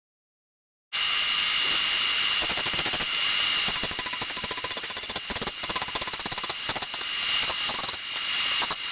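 Rapid, continuous pounding, about seven or eight knocks a second, over a steady hiss with a thin high whistle, starting about a second in after a moment of silence.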